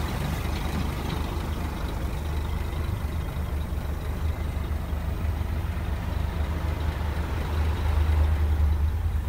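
Scania R480 truck's six-cylinder diesel engine idling steadily, heard from inside the cab as a low, even hum.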